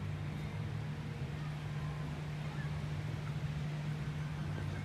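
Low, steady engine drone from a large ship, with a few faint bird chirps.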